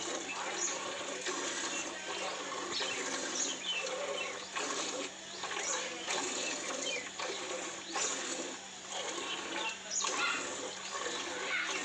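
Milk squirting from a water buffalo's teats into a steel bucket with each squeeze of hand milking, a repeated hissing spray.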